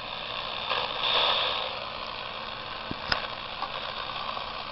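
Static from a pocket AM/FM radio set next to a light-triggered pulse motor, picking up the electrical interference of the motor's coil pulses as a steady hiss. The hiss swells about a second in, and a single sharp click comes about three seconds in.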